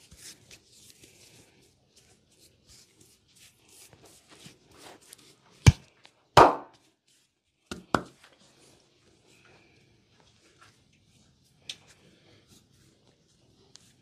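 Hands massaging a bare back and legs: soft rubbing of palms on skin, broken by a few sharp pops from the skin of the upper back being pinched and pulled. The pops come in a cluster in the middle, one of them longer and louder than the rest, with one more near the end.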